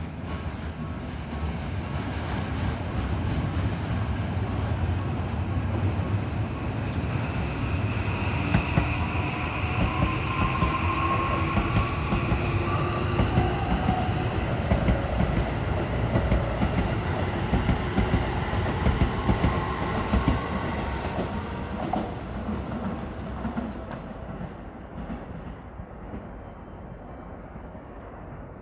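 Toei 5500-series commuter train passing over a level crossing, its wheels rumbling and clattering over the rails, with a thin whine in the middle of the pass. The sound builds quickly, holds loud for about twenty seconds, then fades as the train moves away.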